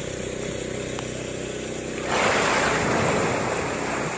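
Humpback whale breaking the surface right beside a boat: about two seconds in, a sudden loud rush of water that slowly dies away, over the steady hum of an idling boat engine.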